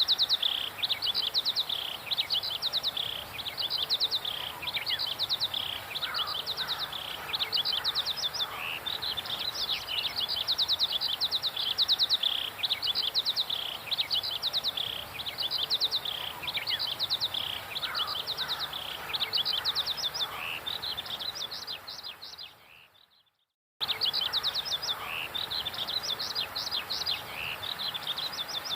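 Songbirds chirping and singing in fast, repeated high trilled phrases, with an occasional lower call beneath. The birdsong fades out and breaks off for about a second late on, then starts up again.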